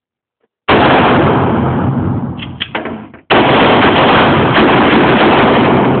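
Gunfire in an indoor shooting range. Two blasts, one about a second in and one about three seconds in, each starting sharply and followed by two to three seconds of loud, dense noise.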